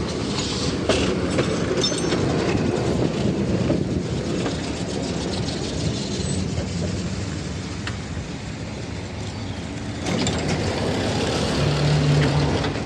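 A coupled pair of 71-605A trams rolls in along the rails and draws up at a stop, with a steady rumble of running gear and wheels. About ten seconds in the noise grows louder, with a short hum near the end as a door stands open.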